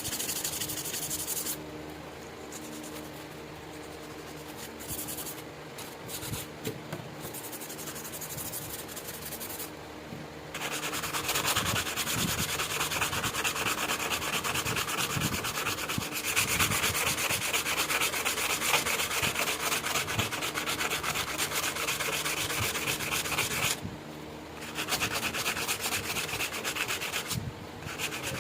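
Abrasive hand-scrubbing of a rusty steel knife blade, as in rust removal with sandpaper or a wire brush. It is light and intermittent at first, then becomes fast, steady back-and-forth rasping from about ten seconds in, with two brief pauses near the end.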